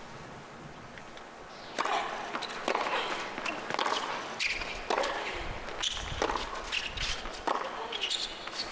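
Tennis rally on a hard court: sharp racket strikes on the ball, one roughly every second, beginning about two seconds in after a steady hush from the stadium crowd.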